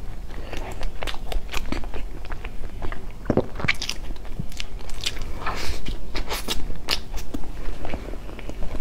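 Close-miked mouth sounds of a person chewing and biting a soft pastry coated in meat floss: wet chewing with small, irregular crunches and crackles, a few louder ones in the middle.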